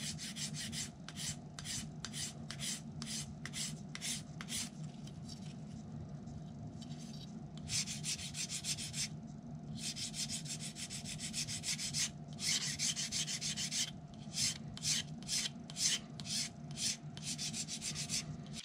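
Edge of a phenolic countertop-laminate wing template being worked down by hand with an abrasive tool. It comes as runs of quick short strokes, with a few longer strokes around the middle. A steady low hum runs underneath.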